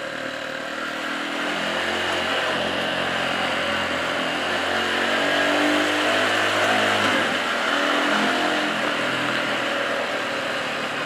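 Dual-sport motorcycle engine running at a steady pace while riding, under a steady rushing noise.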